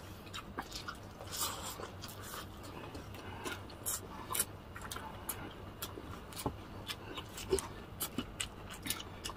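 Two people eating crispy breaded fried chicken with their hands: irregular crunches, chewing and mouth clicks, with a few louder crunches scattered through.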